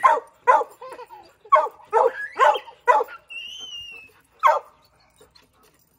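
Dog barking repeatedly: about six quick barks in the first three seconds, then one more, then it stops.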